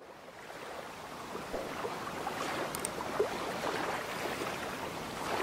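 Small waves lapping and splashing against a rocky shore, fading in over the first second or so and then running on steadily, with a couple of faint high ticks about three seconds in.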